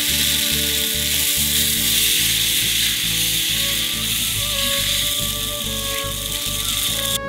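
Curd dosa batter sizzling steadily on a hot iron tawa as it is spread out with a ladle. Background music with a steady beat plays underneath.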